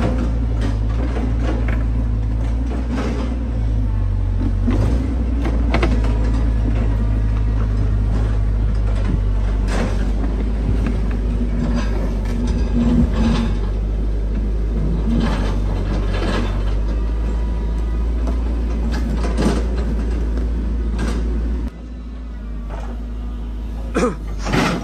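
Caterpillar 312C tracked excavator's diesel engine running hard under load with a steady low drone, with repeated metal clanks and knocks as it climbs a steep muddy slope. About three seconds before the end the sound drops suddenly to a quieter engine drone with a few sharp knocks.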